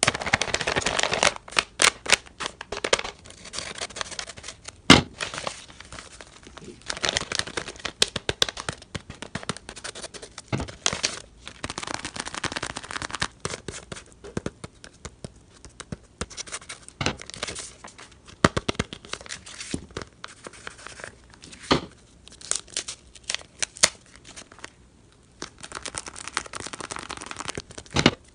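Handmade paper blind bag being opened by hand: paper crinkling, rustling and tearing, broken by many sharp clicks and taps.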